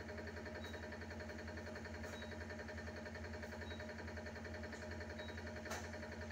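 Hydraulic pump of a 2000 kN concrete compression testing machine running steadily with a low hum as it loads a concrete cube, the load still climbing. Faint ticks recur about every second and a half, with a sharper click near the end.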